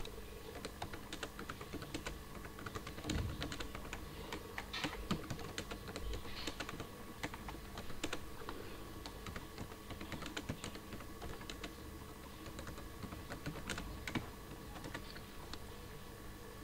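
Computer keyboard being typed on: quick, irregular key clicks over a steady faint hum.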